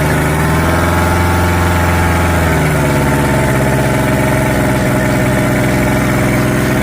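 Small two-stroke brush cutter engine idling steadily, just rebuilt with a new piston and piston rings, with a slight change in its note about two and a half seconds in.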